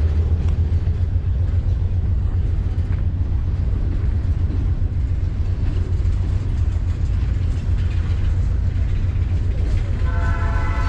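GE C40-8 diesel freight locomotives running with a steady low rumble. About a second before the end a multi-note locomotive horn starts to sound.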